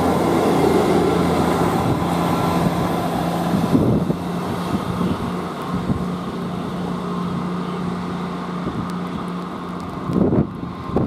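A diesel multiple unit running past the platform with steady engine hum and rail noise, then a Northern Class 158 diesel multiple unit approaching with a steady engine drone. Wind buffets the microphone about ten seconds in.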